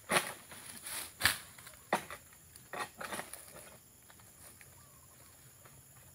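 Pole sickle cutting and tearing at dry oil palm fronds high in the crown, in a run of about six sharp cuts and rustles over the first three and a half seconds, then only faint rustling. Faint insect buzz in the background.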